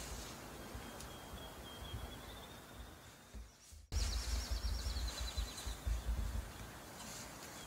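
Wind rumbling on the microphone, with songbirds singing: a thin, high trill, then after a cut a quicker run of high notes stepping down in pitch.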